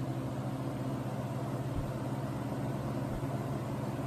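1970s Lasko Super 12-inch box fan running on medium speed: its FASCO shaded-pole motor gives a steady hum over the rush of air from the blades.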